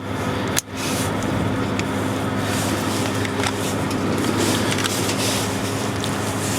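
Steady rush of air with a low hum from a running fan, dipping briefly about half a second in, with a few faint clicks of handling.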